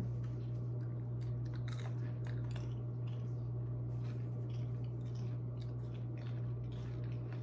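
Seasoned popcorn being tossed and stirred with a knife in a stainless steel mixing bowl: a run of light, irregular crunches and rustles over a steady low hum.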